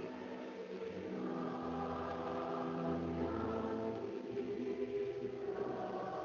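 Slow choral music of long held chords, moving to a new chord about four seconds in.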